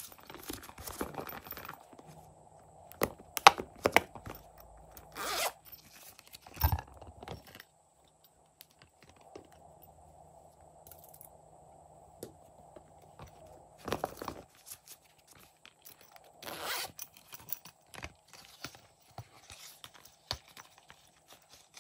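Handling noises from silicone pop-it purses: a zipper being pulled, rustles, and sharp clicks as small pieces are taken out and tipped into the slime dish, in short scattered bursts with quiet gaps between.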